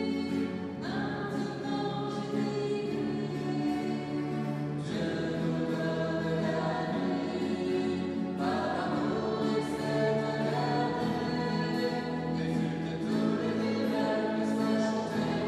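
Choir singing a French liturgical hymn in long held chords that change every few seconds.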